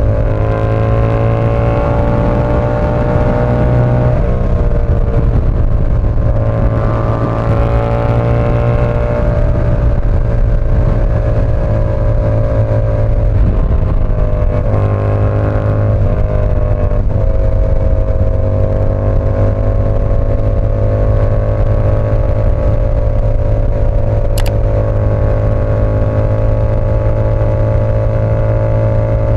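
Yamaha R7's 689 cc parallel-twin engine running steadily at cruise under way, its pitch easing down and back up a couple of times with small throttle changes.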